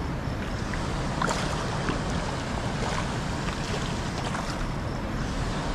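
Water sloshing and splashing as someone wades and moves a plastic basket trap through shallow water, over a steady low rumble of wind on the microphone. A few sharper splashes come about a second, two seconds and three seconds in.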